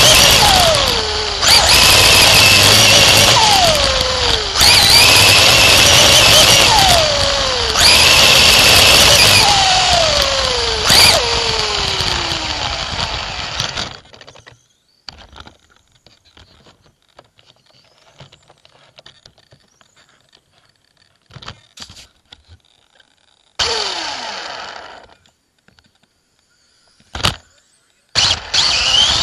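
Dirt-track race car's engine heard from the cockpit at high revs, its note falling away about every three seconds as the throttle is lifted and then picking up again. About halfway through the sound cuts out suddenly to near silence, broken by a few short pops and one brief burst of engine. The engine sound comes back loud near the end.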